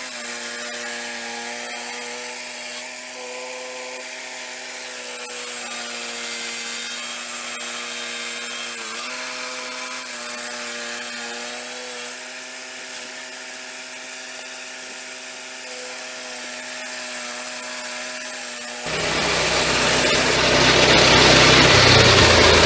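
Engine-driven swing-blade portable sawmill running under steady load as its circular blade saws along a log. About 19 seconds in, the sound turns suddenly much louder and rougher and keeps growing.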